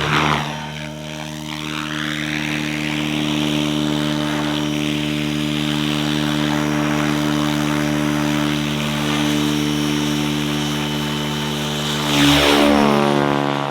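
Radio-controlled model airplane's piston engine and propeller running at a steady pitch, with a close pass at the start and another near the end where the note sweeps down as it goes by.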